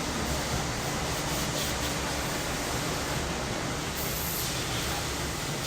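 Summer cicadas calling in a steady, unbroken chorus, with a low rumble underneath.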